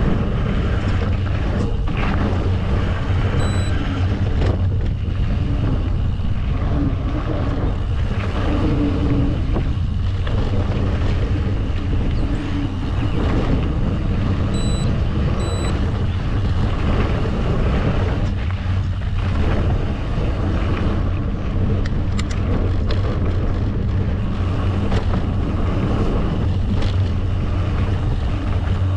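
Wind buffeting the microphone of a mountain bike riding fast along dirt singletrack: a steady low rush, with the tyres rolling over the dirt underneath.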